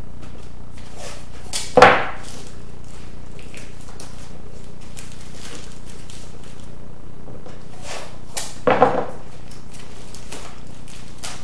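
Painter's tape ripped off the roll in two short, loud rasps, about two seconds in and near nine seconds, between faint crinkling of tinfoil as the tape is pressed onto the foil armature.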